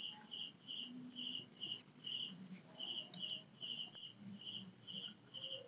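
A cricket chirping steadily and faintly, short high-pitched chirps repeating about two to three times a second.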